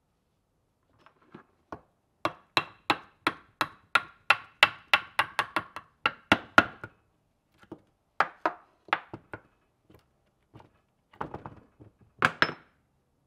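Mallet blows tapping the worm shaft out of a Wright Model 45 screw hoist's gear housing. A quick run of about fourteen taps comes at roughly three a second, then slower, lighter scattered taps follow, and a last louder pair comes near the end, each tap with a short ring.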